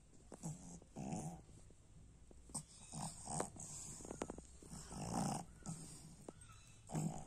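Pug breathing noisily through its nose, a run of short rough breaths about once a second, the longest and loudest about five seconds in.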